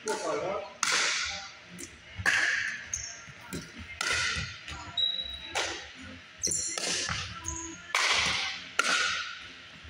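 Pickleball rally: the hard plastic ball being struck by paddles and bouncing on the hardwood floor, a sharp pop about every second or so, each with a ringing gym echo.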